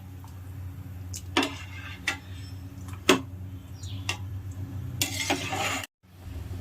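A spoon knocking against a cooking pot a few times as rice is stirred in boiling water, over a steady low hum.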